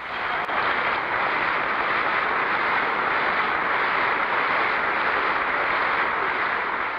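Large audience applauding steadily, from an old recording with little high end, easing slightly near the end.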